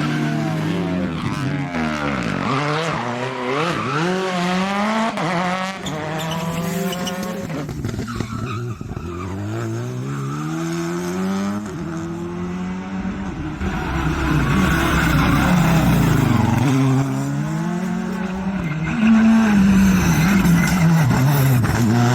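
Rally car engines at full racing pace, their pitch climbing hard and dropping again over and over through gear changes and braking as the cars pass. Tyres squeal on the tarmac.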